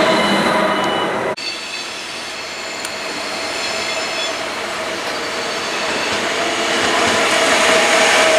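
An ICE high-speed train runs past at close range with loud rolling noise, cut off abruptly about a second and a half in. An approaching electric-locomotive-hauled double-deck Intercity train follows. Its rolling noise carries thin high whines at first and grows steadily louder toward the end.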